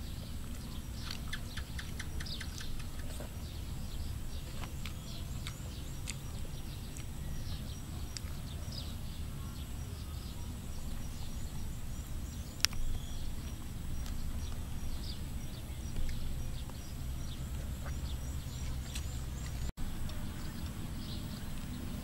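Outdoor ambience: small birds chirping and calling, including a quick trill near the start, over a steady low rumble, with one sharp click about halfway through.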